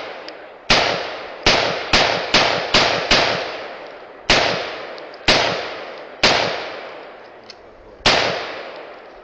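A string of about ten gunshots, each trailing off in an echo: a quick run of five about a second in, then single shots roughly a second apart.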